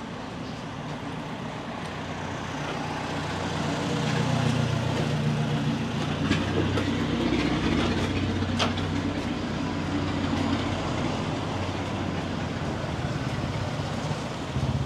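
A motor vehicle's engine running close by amid street noise, with a steady low rumble that grows louder about four seconds in. Two sharp clicks come near the middle.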